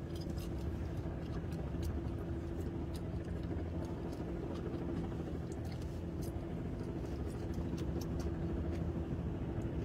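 Steady low rumble of a car's engine and tyres heard from inside the cabin while driving slowly, with a steady hum and a few faint clicks.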